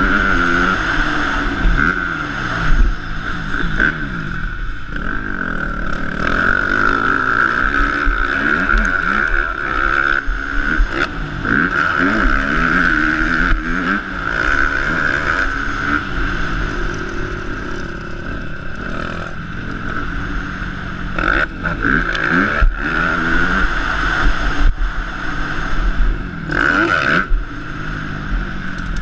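Motocross bike engine revving hard and falling back over and over, its pitch sweeping up and down through acceleration and gear changes, heard from the rider's helmet camera with steady wind rush.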